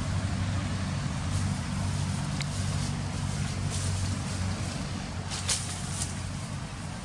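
A motor running steadily with a low hum, with a few faint rustles or ticks on top.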